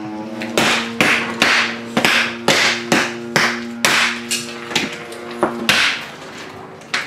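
Wooden mallets striking cooked spider-crab shells and legs on a table, about two blows a second, a dozen or so in all. Sustained background music tones run underneath and stop near the end.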